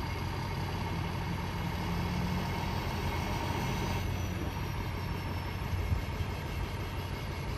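Semi-truck tractor's diesel engine running at low speed as the truck pulls away, a steady low drone.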